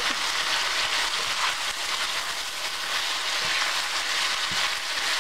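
Beef, bell peppers and onions sizzling steadily in a hot stainless steel skillet as they are stir-fried with a wooden spoon, with a few soft knocks of the spoon against the pan.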